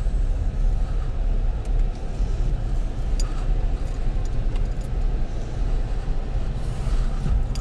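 A Ford vehicle being driven, heard from inside the cabin: a steady low rumble of engine and road noise.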